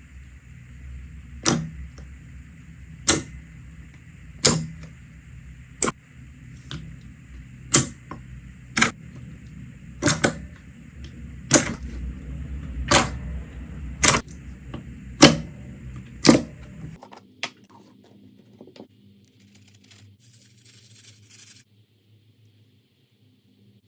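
Slime being pressed and worked, giving about a dozen sharp pops, roughly one every second and a half, over a steady low hum. The hum and pops stop abruptly about 17 seconds in, leaving faint, scattered handling sounds.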